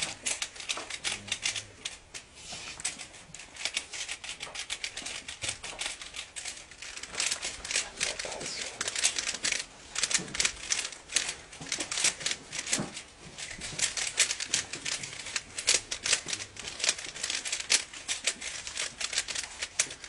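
Rubik's cube being turned rapidly by hand: dense, irregular clicking and clattering of the plastic layers, in quick flurries with short pauses.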